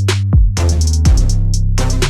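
Background electronic music with a drum-machine beat: a falling kick drum, a steady bass and rapid hi-hat ticks.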